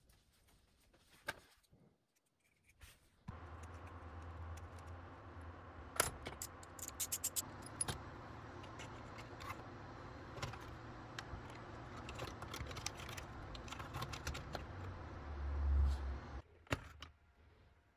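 Small 3D-printed plastic parts and screws clicking and tapping as they are handled and fitted together by hand, with a quick run of clicks about six seconds in. A steady low hum runs underneath from about three seconds in, swells, then cuts off suddenly near the end.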